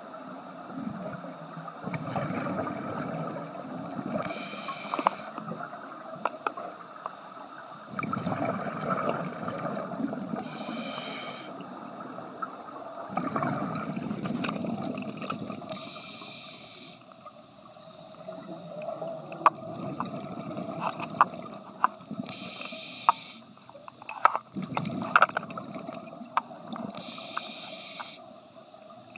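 Scuba diver breathing through a regulator underwater: a short hiss of inhaled air about every six seconds, five times, and between them the low rumble of exhaled bubbles. Scattered sharp clicks and knocks come in the second half.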